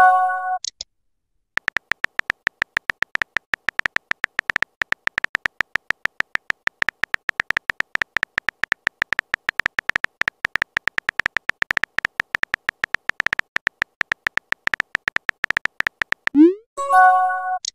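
Texting-app keyboard typing sound effect: a long run of rapid, even clicks as a message is typed, stopping about sixteen seconds in. Near the end comes a short rising pop and chime as the message appears.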